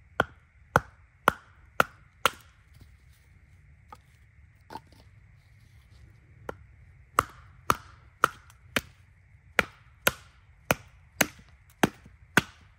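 A wooden baton striking the back of a small hatchet set into a stick, splitting kindling. Sharp woody knocks about two a second: a run of five, a few lighter taps, then a longer run of about ten.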